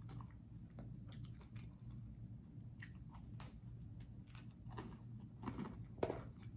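A person chewing food close to the microphone: soft, wet mouth clicks, with a few louder, crunchier bites near the end.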